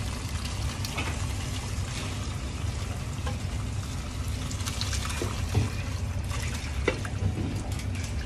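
Vegetable stock being poured from a stainless saucepan through a chinois strainer, liquid splashing and trickling steadily. Two sharp knocks stand out partway through.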